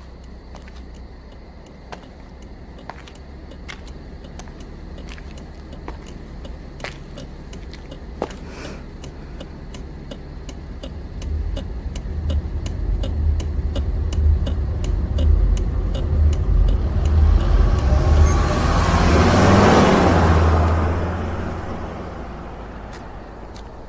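A car engine's low rumble grows louder from about halfway through and swells into a loud rush of engine and tyre noise near the end, then dies away. Faint ticks at about one a second run through the first part.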